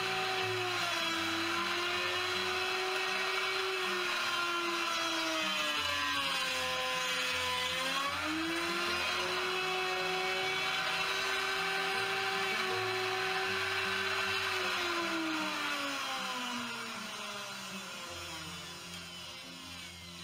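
Handheld electric router cutting a scarf-joint taper along a wooden jig: a steady high motor whine whose pitch sags for a couple of seconds around the middle of the pass. Over the last few seconds the pitch falls and the sound fades.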